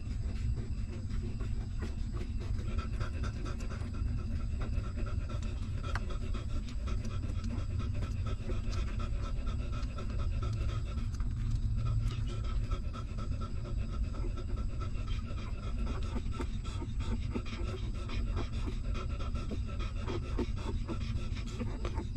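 Mother dog panting steadily while her newborn puppies nurse, with many small wet suckling clicks over a steady low rumble.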